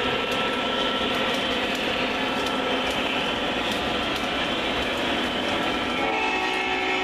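O scale model freight train rolling past: a steady rumble of wheels on track with light clicking at the rail joints, mixed with the diesel sound from the Lionel Legacy locomotives' sound system. A new held, horn-like tone comes in about six seconds in.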